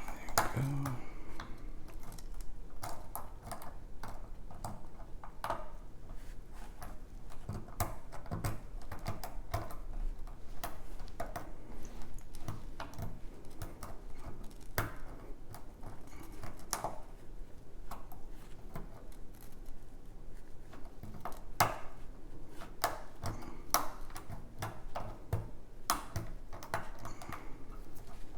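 Lock pick and tension wrench working the pins of a six-pin key-in-knob cylinder: irregular light metallic clicks and taps as pins are lifted and set.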